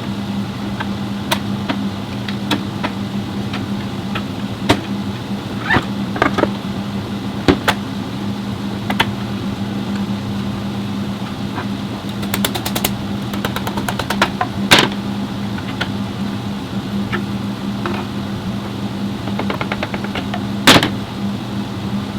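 Steady low machine hum with scattered metallic clicks and knocks of hand tools at work, including a quick ratcheting run of clicks partway through and a louder knock near the end.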